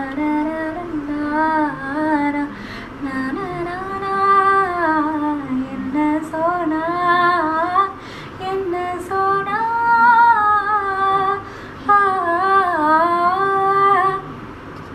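A woman's voice singing a flowing melody without clear words, in several long phrases with short breaks between them.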